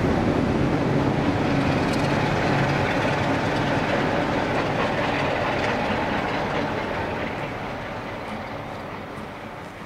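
GWR Castle-class steam locomotive 7029 Clun Castle pulling a train away, its exhaust mixed with the clatter of coach wheels on the rails. The sound fades steadily over the second half as the train recedes.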